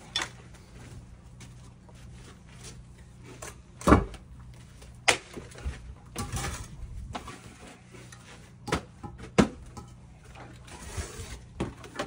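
Blocklaying sounds: steel trowels scraping mortar off the boards, with a few sharp knocks as concrete blocks are set and tapped down on the mortar bed, the loudest about four seconds in.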